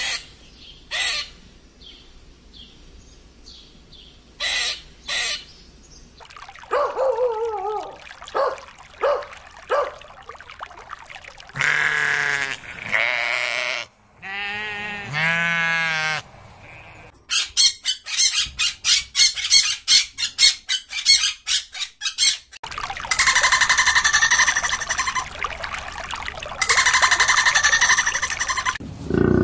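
A string of different animal calls, one after another. First come a few short sharp chirps from a grey squirrel. In the middle, goats bleat, with wavering cries. Toward the end come a fast run of pulsed calls and then a steady buzzing call.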